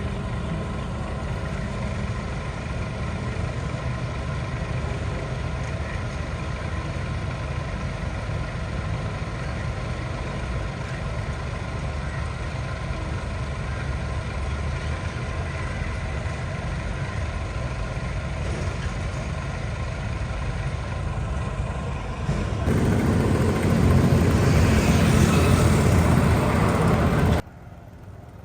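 Motor vehicle engine running steadily with a continuous low rumble. It gets louder about three-quarters of the way through, then cuts off suddenly near the end.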